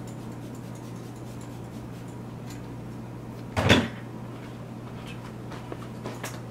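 A single short, loud thump a little past halfway, among faint clicks and knocks of things being handled in a closet, over a steady low hum.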